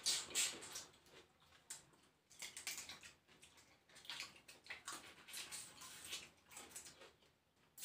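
Mouth sounds of eating crab with the hands: irregular wet smacks, sucks and chewing clicks.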